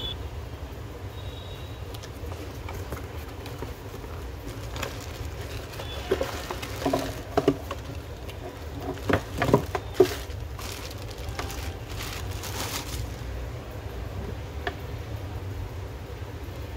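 Unboxing handling noise: a cardboard box and a plastic bag around a corded screwdriver drill being handled, with crinkling rustles and a few sharp knocks in the middle, over a steady low hum.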